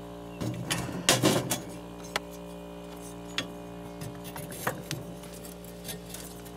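Metal clinks and rattles from a nut driver and the steel burner parts of an RV propane water heater being handled as the igniter is refitted: a cluster of clatter in the first second and a half, then a few single clicks. A steady low hum runs underneath.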